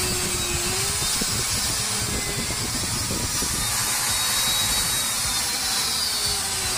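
Bosch GWS 600 angle grinder's motor running at full speed with the gear head open and the spindle removed, a steady high whine. It runs without any grinding or rattle, which shows the noise came from the broken spindle bearing and not from the motor.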